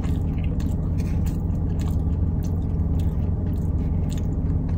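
A person chewing a mouthful of pizza close to the microphone: irregular soft clicks and crunches from the mouth, over a steady low rumble inside the car.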